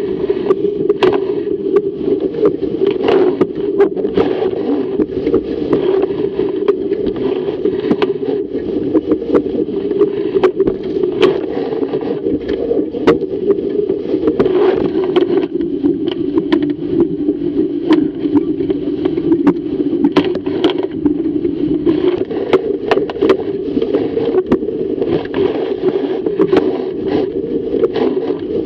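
Fireball racing dinghy planing fast through waves: a loud, steady, muffled rush of water and wind along the hull, broken by frequent sharp slaps and splashes of spray.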